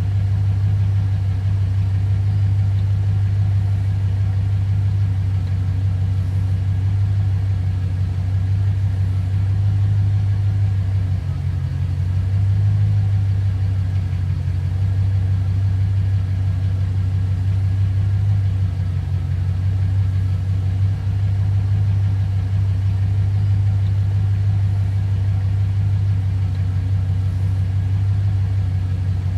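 V8 car engine idling at tick over: a steady low rumble that wavers slightly now and then.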